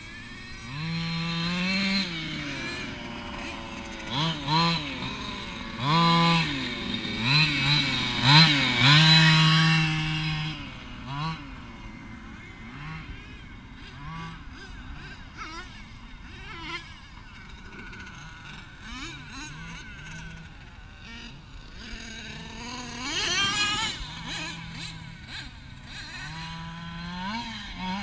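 Two-stroke gasoline engine of a Losi DBXL 1/5-scale RC buggy revving up and down in repeated bursts as the buggy is driven. It is loudest through the first ten seconds, quieter in the middle, and revs up again about 23 seconds in.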